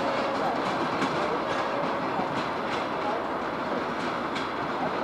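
Train wheels running along the track: a steady rumble of rolling stock with sharp, irregular clicks as the wheels pass over rail joints.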